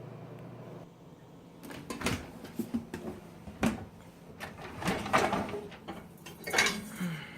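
A KitchenAid dishwasher being opened: a brief steady hum at the start, then a series of knocks and rattles of the door and the racks sliding out.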